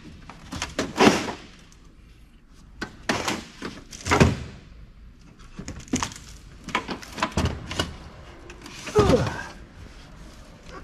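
Clicks, knocks and scrapes of a desktop computer case being taken apart by hand: screws and metal and plastic parts handled and set down, with louder knocks about one, four and nine seconds in.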